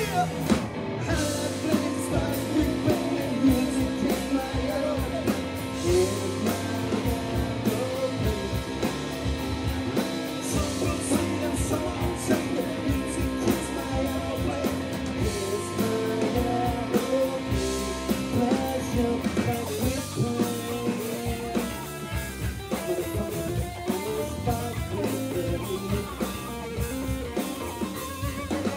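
Live rock band playing: a singer over electric guitar, bass guitar and a drum kit.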